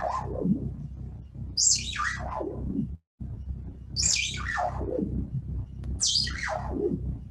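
Modular synthesizer with its oscillator frequency-modulated, giving a long falling sweep from a high whistle down to a low tone about every two seconds, over a steady low drone. The sound cuts out completely for a moment about three seconds in.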